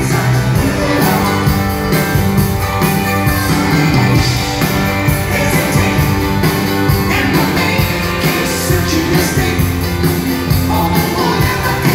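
Live rock band music in concert, full band playing continuously and loudly.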